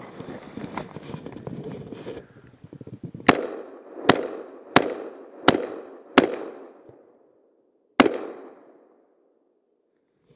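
Six rifle shots from a Rock River Arms AR-15, each with a short echoing tail: five in quick succession, about 0.7 s apart, then one more after a pause of nearly two seconds. Rustling handling noise comes before the first shot.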